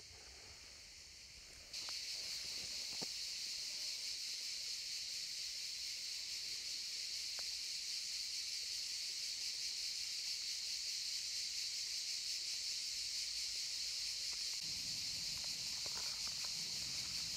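A steady, high-pitched chorus of insects, starting abruptly about two seconds in. A low rumble joins it about three seconds before the end.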